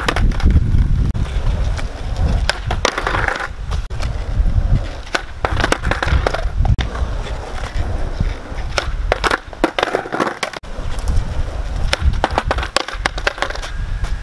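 Skateboard wheels rolling on rough asphalt, a steady rumble broken by several clusters of sharp clacks as the board's tail is popped and the deck and wheels slap back down during kickflip attempts.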